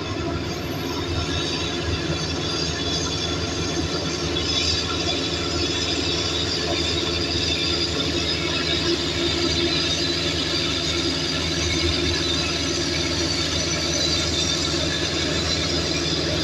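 Steel-tracked Komatsu earthmover running steadily, its diesel engine working under a high squeal and clatter from the crawler tracks.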